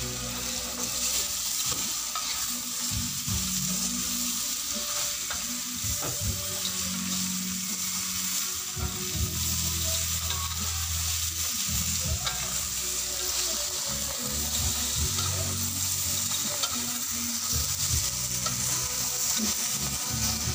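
Sago grubs sizzling steadily in a wok as they fry in soy sauce, with a metal spatula stirring them and scraping and ticking against the pan now and then.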